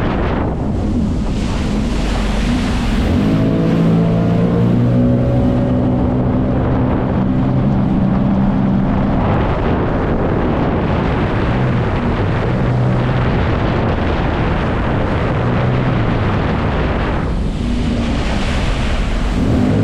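Jet ski engine running under way, its steady note strongest for several seconds after the start and then coming and going under a constant rush of water spray and wind on the microphone.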